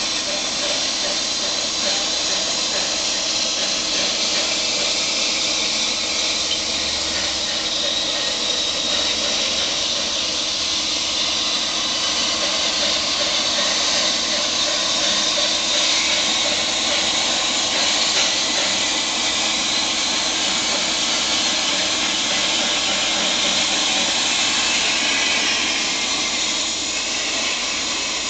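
CNC plasma cutter's arc cutting through metal sheet: a steady, high-pitched hiss that runs without a break.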